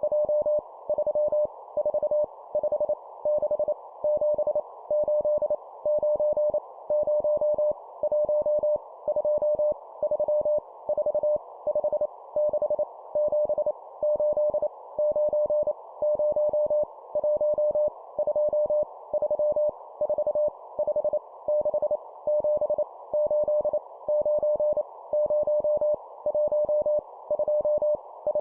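Morse code (CW) tone, a steady pitch near 600 Hz keyed in rapid dots and dashes at 25 words per minute, sending numbers, with brief gaps between characters.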